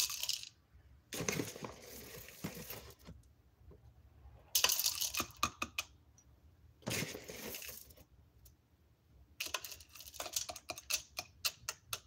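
Whole coffee beans spooned into the bowl of a Gevi electric coffee grinder, clattering in several separate pours, the last a quick run of sharp clicks.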